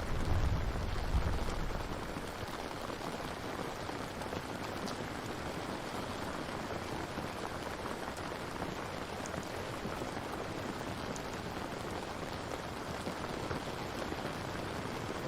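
Steady rain, an even hiss of falling drops. A low rumble dies away over the first two seconds.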